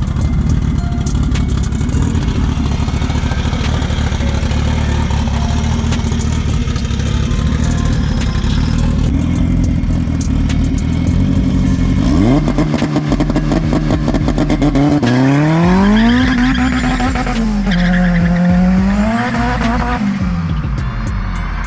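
K-series-swapped Honda Civic hatchback engine running steadily, then revving up hard about halfway in. Engine speed climbs, drops and climbs again as the car accelerates, and falls away near the end.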